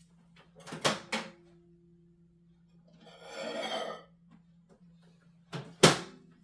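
A cup knocks twice on a hard surface about a second in, ringing briefly after. About a second-long sip follows in the middle. Near the end the cup is set down with two sharp knocks, the second the loudest.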